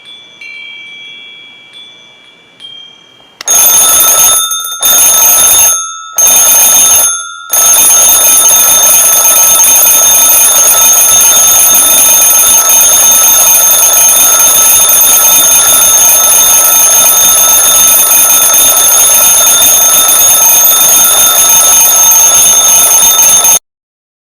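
Alarm clock going off: a soft chiming tone for the first few seconds, then loud ringing in three short bursts, followed by continuous ringing that cuts off suddenly near the end.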